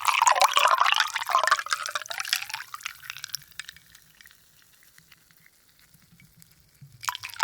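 Water poured into a glass of ice cubes, the pitch of the stream rising as the glass fills before it tapers off three or four seconds in. Faint clicks follow, then a short second pour starts near the end.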